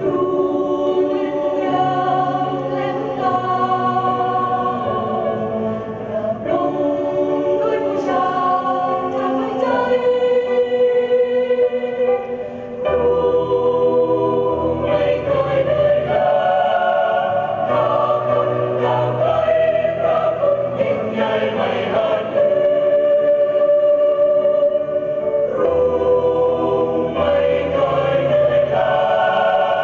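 A choir singing a song in several parts, with sustained chords that change every second or two.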